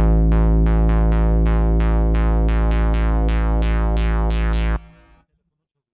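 Electronic phone ringtone: a quick run of repeated synth notes, about three a second, over a steady low bass note, cutting off sharply near the end and followed by about a second of silence.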